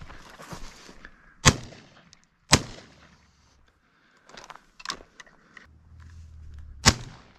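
Three shotgun shots: two about a second apart, then a few light clicks and rustles, and a third, loudest shot near the end.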